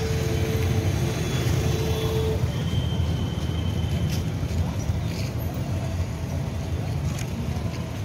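Street traffic noise: a steady low rumble of passing motorbikes and cars, with a steady tone lasting about two seconds at the start and a few faint clicks later.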